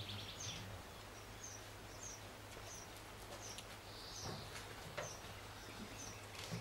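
Small birds chirping: a steady series of short, high chirps with a longer falling call about four seconds in, faint over a low steady hum.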